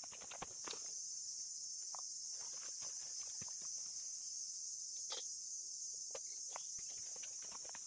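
Steady high-pitched insect drone with scattered light clicks and knocks; no chainsaw running.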